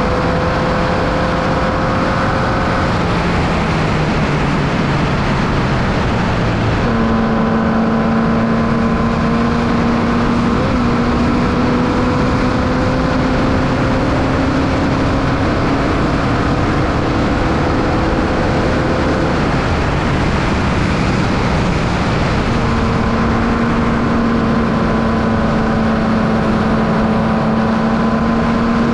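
Formula Vee race car's 1200cc Volkswagen air-cooled flat-four engine heard from on board under load, its note climbing slowly through long pulls. Twice it eases off and its note falls away, about three seconds in and around twenty seconds in, before it pulls again. A steady rush of noise runs underneath.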